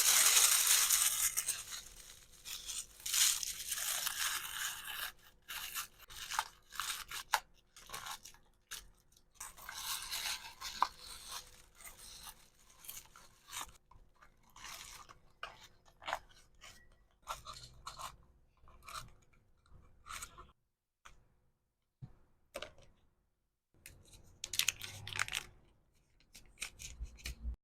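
Packaging being handled for an order: plastic and paper crinkling and tearing in uneven bursts, with small clicks. The sound is loudest in the first two seconds, then comes in short rustles with brief pauses.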